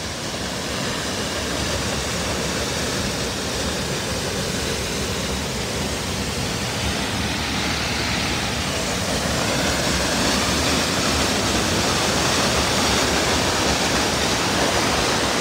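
Rifle Falls waterfall rushing steadily, a full, even roar of falling water that grows slightly louder about halfway through.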